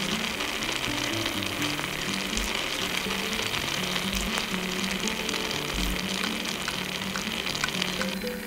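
Food sizzling in hot oil in a miniature pan: a steady frying hiss with small crackles that stops abruptly about eight seconds in.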